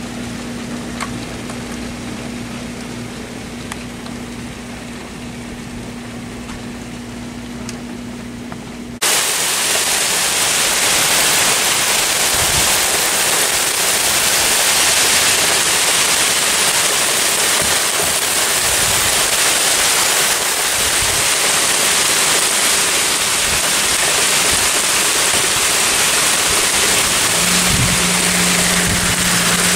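Heavy graupel (small soft hail) pelting down, a dense steady hiss of pellets striking the ground, pavement and leaves. For the first nine seconds it is quieter, with a steady low hum under it; then it cuts to a much louder, brighter hiss.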